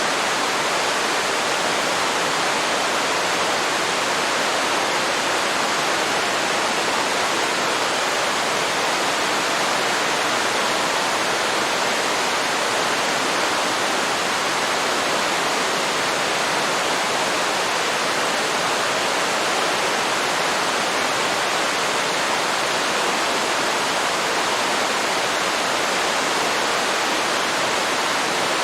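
Waterfall rushing steadily: a constant, even roar of falling water with no breaks or changes.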